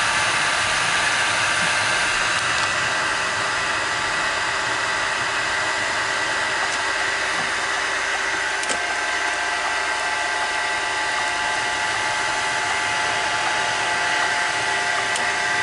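Steady cabin noise inside a moving car: an even, fan-like rush with a few steady whining tones, from the heater blower and the running engine.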